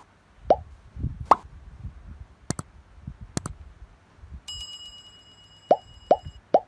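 Subscribe-button animation sound effects: a series of short pops that drop in pitch, two sharp mouse-style clicks, then a bell chiming for about two seconds, with three more pops near the end.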